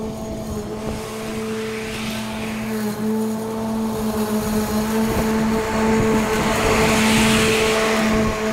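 Battery-powered electric motor running with a steady pitched hum, with a hiss swelling about two seconds in and again, louder, near the end.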